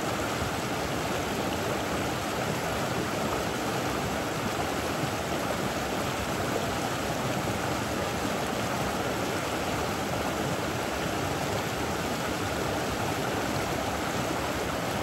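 Small creek running: a steady, even rush of flowing water.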